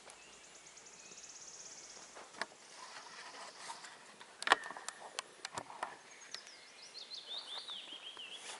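Birds singing in woodland: a rapid high trill in the first two seconds, and near the end a song of quick notes that step down in pitch. Scattered sharp clicks and snaps, the loudest about four and a half seconds in.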